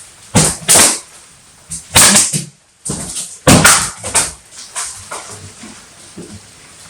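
Whip lashing: a series of loud, sharp cracks at irregular spacing, about seven in the first four seconds, then weaker ones trailing off.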